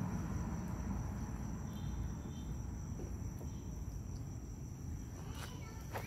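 Outdoor ambience: a steady high-pitched insect drone over a low background rumble, with a brief faint pitched call and a few clicks near the end.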